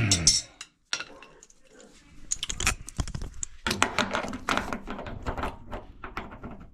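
Quick metal clicks and clinks of threaded gas-line pipe fittings being turned and handled, after a brief loud sound at the start.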